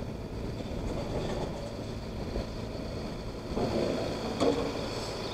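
A vehicle engine running steadily in a low rumble. Near the end there is a brief louder clatter, ending in a sharp knock.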